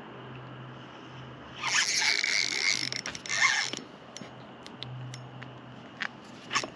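Spinning fishing reel being cranked in two quick spells, about two seconds in all, with a few light clicks afterwards.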